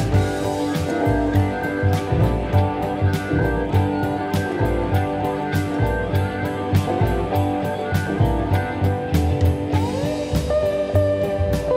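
Background music: guitar over a drum kit keeping a steady beat, with sliding guitar notes near the end.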